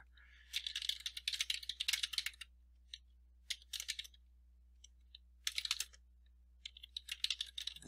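Typing on a computer keyboard: quick runs of keystrokes separated by short pauses, with a long run in the first couple of seconds and shorter runs later.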